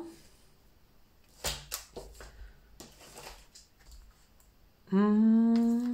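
A paper strip and a clear stamp set being handled on a craft table: a few sharp clicks and light rustles about a second and a half to three seconds in. Near the end a voice holds one steady 'mmm'-like note for about a second, the loudest sound here.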